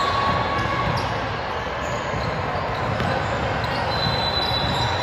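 Steady hubbub of a sports hall during a youth team game, with a few faint knocks like a ball bouncing.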